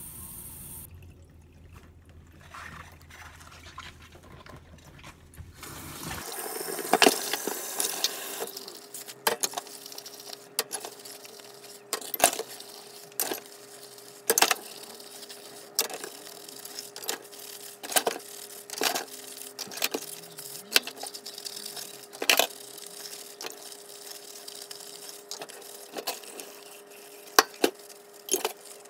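Dishes being washed by hand in a stainless steel sink: plastic food containers, a steel cup and spoons clinking and knocking against each other and the sink, with scrubbing and a short run of tap water. The dishwashing starts about six seconds in, after a quieter stretch with a low hum.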